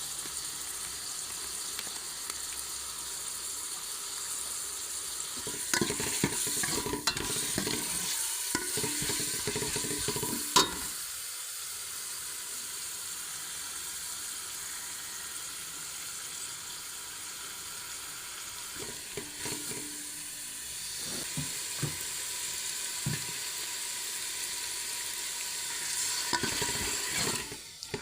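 Food sizzling steadily in a hot pan, with a utensil stirring and scraping it in several bouts and one sharp knock against the pan about ten seconds in.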